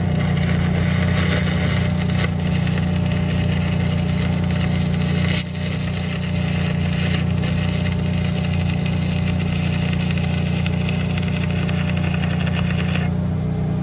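Stick-welding arc crackling and sizzling steadily, broken for a moment about five and a half seconds in and stopping near the end, over a steady engine drone that keeps running after the arc stops.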